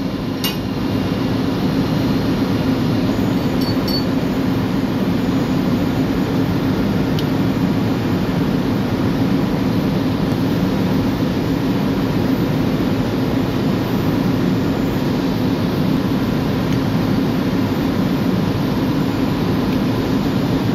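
Steady drone of running machinery, typical of a ship's engine room, with a few faint metallic clinks in the first few seconds as pump parts are brushed clean in a bucket of oil.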